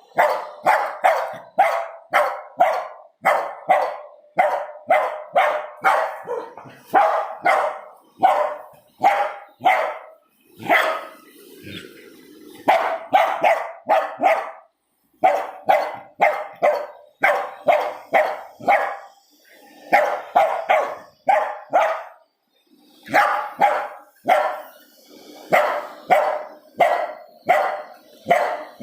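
Lhasa Apso barking over and over at a robot vacuum cleaner, in runs of quick barks at about two a second broken by short pauses.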